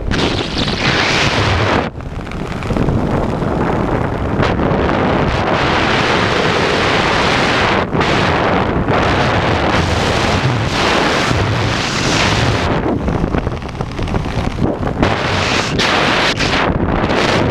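Rushing wind buffeting the microphone of a body-mounted camera in the air during a skydive, loud and unbroken apart from a few brief dips.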